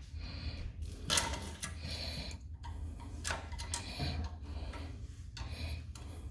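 Irregular small metal clicks and taps of pliers working the retainer pins out of a front disc brake caliper, the sharpest about a second in, over a steady low hum.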